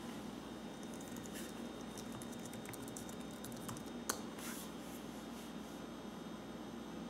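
Typing on an HP dv6z-7000 laptop's keyboard: a run of light key clicks, with one sharper keystroke about four seconds in, stopping about a second later.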